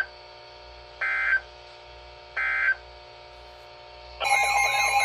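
Emergency Alert System SAME end-of-message data bursts: short buzzy digital chirps repeating about every 1.3 seconds, signalling the end of the watch message. About four seconds in, a loud warbling alert tone starts, the alarm that opens the next warning.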